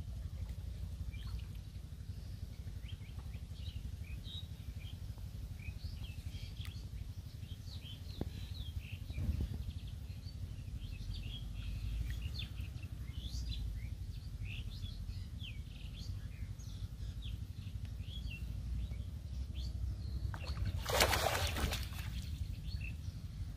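Many small birds chirping, short high calls scattered throughout over a steady low rumble, with a brief loud rush of noise about 21 seconds in.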